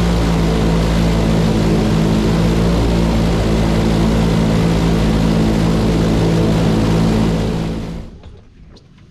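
Airboat's engine and air propeller running at speed: a loud, steady drone that fades away about eight seconds in.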